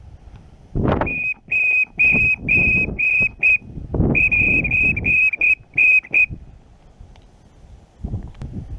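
A duck whistle call blown in two quick runs of short, even-pitched toots, about a dozen notes in all, with breath rushing under each note. It is used to call in shovelers.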